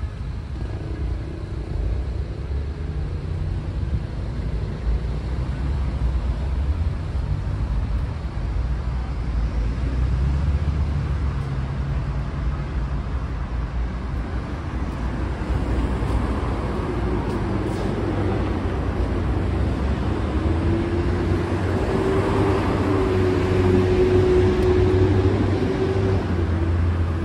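City street traffic: cars and other motor vehicles passing, a steady low rumble. In the last third a vehicle's engine hum grows louder and holds.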